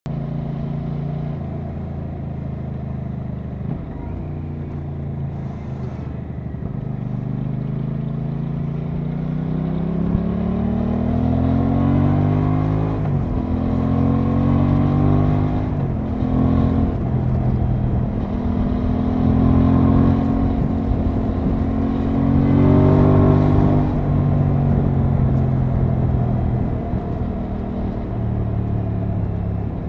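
Aprilia Tuono 660's parallel-twin engine pulling up through the gears, its pitch climbing and dropping back at each upshift, then holding steady, with wind noise on the microphone.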